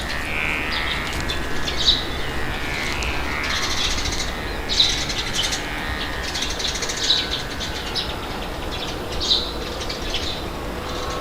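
Songbirds chirping and twittering continuously, with a sharper, louder call about every two and a half seconds, over a steady low rumble of wind.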